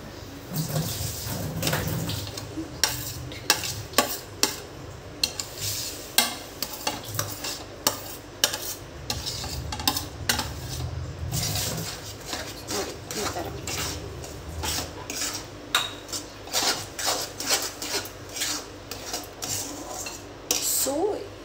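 Metal spatula scraping semolina off a plate into an aluminium kadai, then stirring it into the sugar syrup with fried cashews and raisins: many quick clinks and scrapes of metal on metal. A low hum runs underneath until about two-thirds of the way through.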